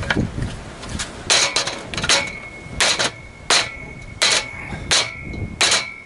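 A claw hammer strikes a birch multiplex (plywood) catapult frame, thinned to about 15 mm and clamped in a bench vise, in a strength test. There are about seven hard blows, roughly one every 0.7 s, each with a short metallic ring. The frame does not break.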